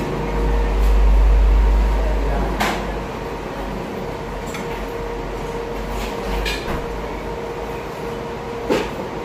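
Restaurant room sound: a steady hum under a deep rumble that is loudest for the first two seconds or so, with a few sharp clicks, one about two and a half seconds in and one near the end.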